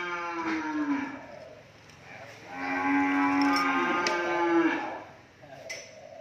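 Cattle mooing: one long call tails off about a second in, then a second long call runs from about two and a half to nearly five seconds in.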